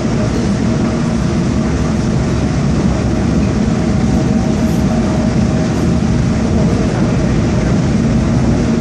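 Seoul Subway Line 2 train running through the tunnel, heard from inside the car: a steady rumble of wheels on rail with a faint steady hum underneath.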